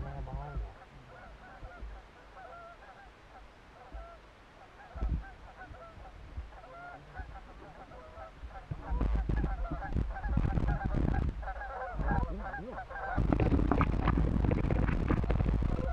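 A flock of geese honking, many overlapping calls throughout. From about nine seconds in, and louder again near the end, heavy rustling and knocking as the layout blind is thrown open and the shotgun handled.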